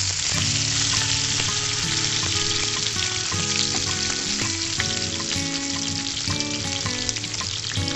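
Chicken pieces frying in hot oil in a shallow pan, with a steady sizzle and small crackles.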